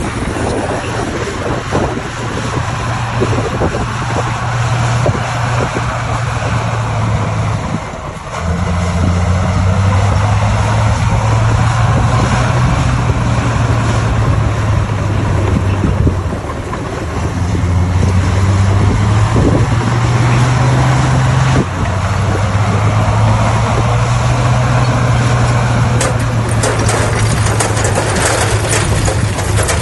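Bulldozer's diesel engine running hard, dipping briefly about eight seconds in and again about halfway, its pitch stepping up and down as the load changes. A dense rattling clatter joins in near the end.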